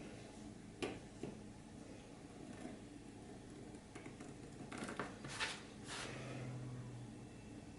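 Faint handling noises of leatherworking tools and leather on a workbench: a light click about a second in, then a few short scraping rustles.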